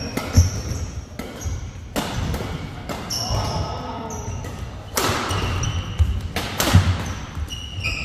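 Badminton rally: rackets sharply hitting the shuttlecock several times, about a second or more apart, with sneakers squeaking and feet thumping on the court mat.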